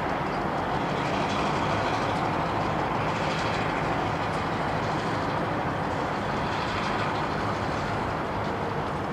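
A diesel locomotive running at a distance along the line: a steady, even engine drone mixed with a rushing noise.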